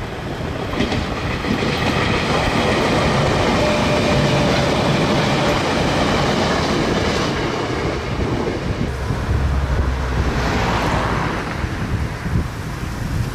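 Nagoya Railroad (Meitetsu) electric train running past: a steady rush of wheel and rail noise that swells a few seconds in and again near the end.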